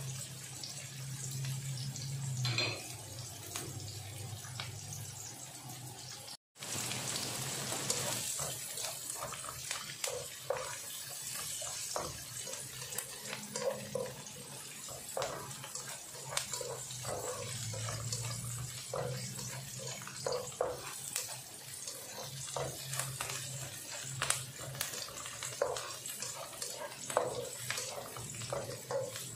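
Onions and garlic sizzling in oil in a nonstick frying pan, with a spatula scraping and tapping against the pan as they are stirred. The sound breaks off for a moment about six seconds in.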